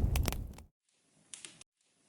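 Log fire crackling in a fireplace, with sharp pops over a low rumble, fading out about two-thirds of a second in. Then dead silence, broken briefly by a few faint crackles halfway through.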